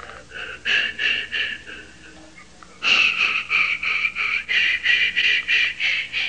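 Breathy whistling in quick, short repeated notes, the whistled healing song (icaro) of an ayahuasca ceremony. It starts softly and sparsely, then becomes louder and more regular about three seconds in, at roughly four or five notes a second.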